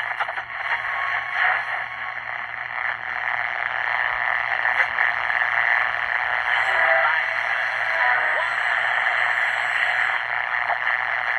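Zenith Royal 20 transistor radio playing through its small, tinny speaker: a steady hiss of static between stations, with a few brief whistles and faint snatches of sound as the dial is turned. The radio is receiving and working again now that its corroded battery terminals have been cleaned.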